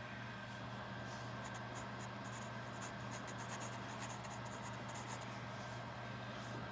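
Graphite pencil sketching on sketchbook paper: many short, quick scratchy strokes, densest in the first half, over a steady low background hum.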